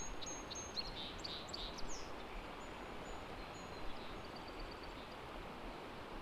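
Small songbirds singing: a string of short high notes and quick trills with a couple of falling sweeps in the first two seconds, then a few fainter high notes, over the steady rush of a small stream.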